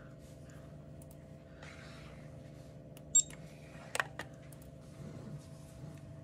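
Coordinate measuring machine running an automatic inspection program: a steady low machine hum, a short high beep about three seconds in, and a sharp click about a second later followed by a lighter click.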